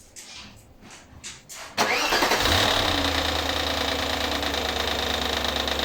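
Audi A8 D2's 4.2-litre ABZ V8 starting about two seconds in and settling straight into a steady idle, with a constant high whine over the running. The engine is being run to track down a knock.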